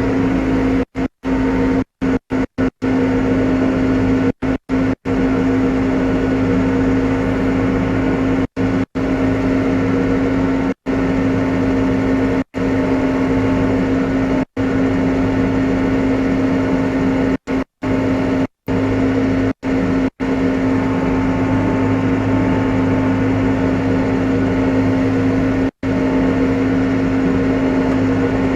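New Holland T5.120 tractor's diesel engine running steadily under load while pulling a three-furrow plough through the field at a held cruise speed. The whole sound cuts out briefly a dozen or so times, most of them in the first twenty seconds.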